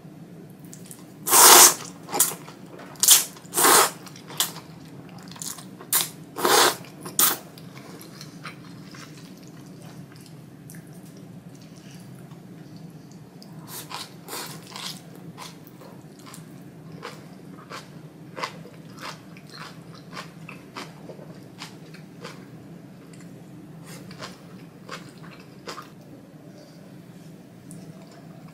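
Thick ramen noodles slurped loudly in a string of short bursts during the first seven or so seconds, then chewing with soft, wet mouth clicks.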